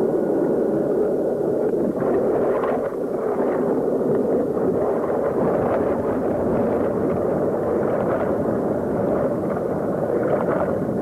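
Steady, loud rush of water churning at a low-head dam, heard through an onboard camera in a canoe as it goes over the dam and is pulled under.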